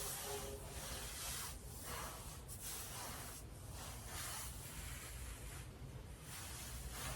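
Nylon stockings rubbing against bedding, a run of swishing strokes about one a second.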